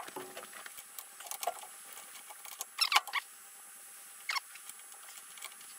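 Short, scattered metal squeaks and scrapes with a few light clicks, the loudest about three seconds in, as the tool rest of a vintage Coronet woodturning lathe is handled and adjusted.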